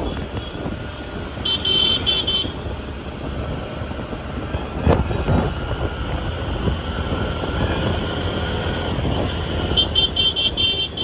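Wind and road noise from riding on a motor scooter in traffic, with two short bursts of rapid high-pitched horn beeps, about a second and a half in and again near the end.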